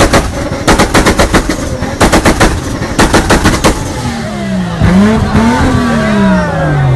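A car engine on a two-step launch limiter, banging rapidly in four strings of about eight pops a second. It then revs up and down, with the revs falling away near the end.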